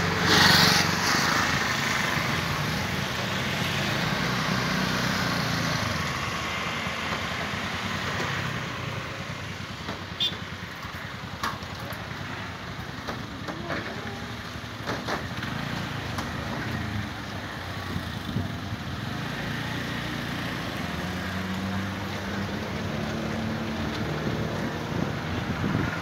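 Steady engine noise from the mobile crane and from motorcycle traffic, with a louder moment at the start and a few sharp knocks or clicks around the middle.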